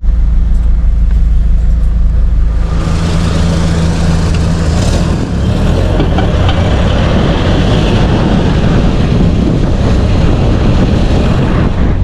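Car running, a steady low engine drone, joined about three seconds in by a loud hiss of road and wind noise that stays to the end.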